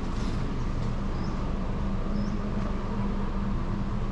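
Steady outdoor background hum with a constant low mechanical drone, broken by a few short high bird chirps.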